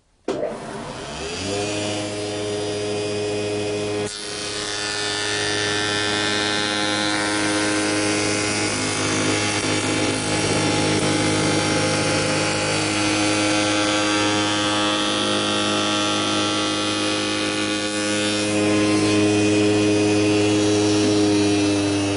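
A spindle moulder (wood shaper) is switched on, its whine rising for about a second as it runs up to speed. It then runs steadily while a curved wooden segment in a template jig is fed past the rebate cutter block and ball-bearing follower.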